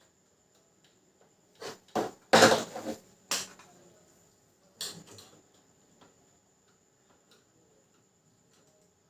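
Handling noise while working inside an opened inkjet printer: a few sharp knocks and clicks, with a short rattly clatter about two seconds in and a few softer knocks near five seconds.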